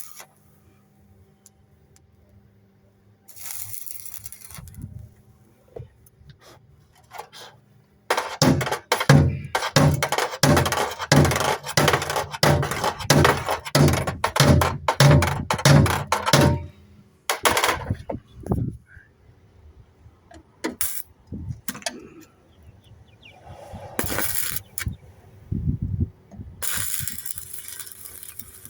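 Steel being struck in a rapid series of metal knocks, about two to three a second, for some eight seconds in the middle, each with a short low ring. Scattered single clanks and clinks come before and after.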